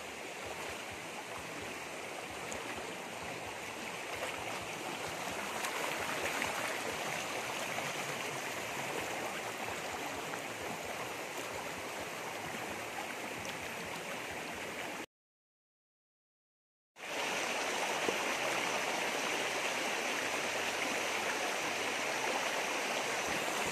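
Shallow stream running steadily over rocks, a constant rush of water. About two-thirds of the way through it cuts out completely for about two seconds, then comes back a little louder.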